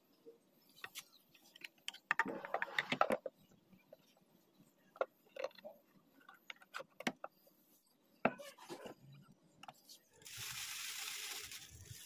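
Light clicks and knocks of a hard white plastic cover being handled and fitted onto the back of a refrigerator above the compressor, with a rattling cluster about two seconds in. Near the end, a plastic bag rustling for a couple of seconds.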